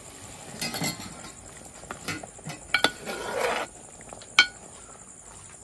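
A perforated metal ladle stirring thick chicken curry in a large metal pot, scraping through the gravy and clinking sharply against the pot a few times. Crickets chirp steadily in the background.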